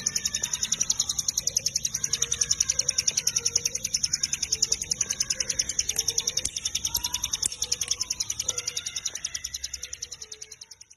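A cigun (ciblek gunung, a hill prinia) calls in a long, rapid, even run of high, sharp ticking notes, about seven a second. Faint short whistled notes sound beneath it. The run fades out near the end.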